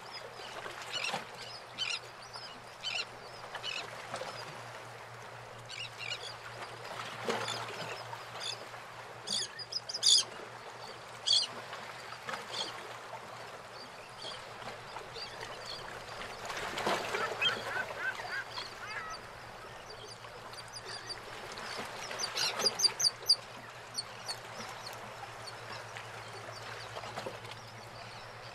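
Harbour water sloshing and lapping against moored fishing boats, swelling now and then as waves surge in. Birds call over it in short, high-pitched notes in quick series, loudest about ten seconds in and again around twenty-three seconds.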